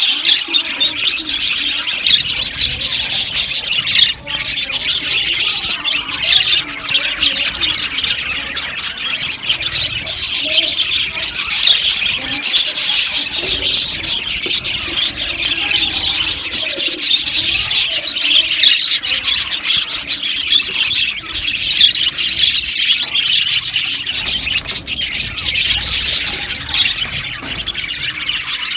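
A colony of budgerigars chirping and chattering all at once in a dense, continuous, high-pitched warble with squeaks and squawks.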